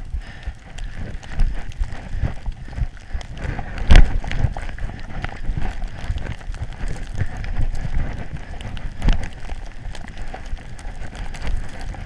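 Wind buffeting a GoPro Hero3 Black as a rider descends through a snowstorm, with the scrape and irregular knocks of the ride over snow. The sharpest knock comes about four seconds in, and another about nine seconds in.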